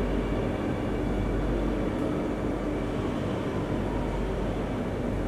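Steady interior noise of a Singapore MRT Circle Line train carriage: a low rumble with a faint steady hum.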